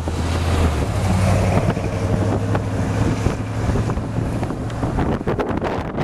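Wind buffeting the microphone over a steady low rumble of a vehicle engine, with stronger gusts near the end.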